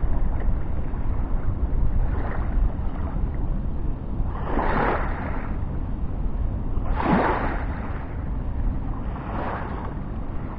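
Wind rumbling on the microphone, with small waves washing in four times about two and a half seconds apart, the middle two loudest.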